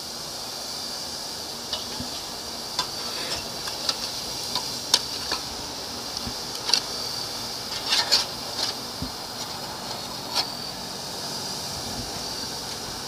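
Raw hamburger patties sizzling on a hot charcoal grill: a steady hiss with scattered sharp pops and clicks.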